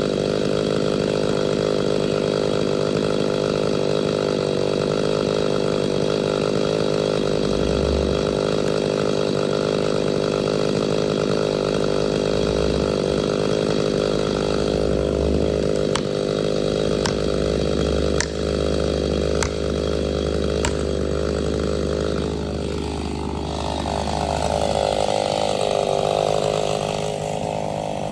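Chainsaw running steadily at high revs, with a few sharp clicks in the middle; about three-quarters of the way through, its pitch bends and drops before levelling off.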